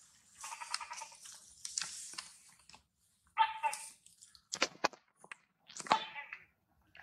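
Baby long-tailed macaque crying: about five short, high-pitched cries in a row, roughly a second apart, the middle ones sharper and choppier.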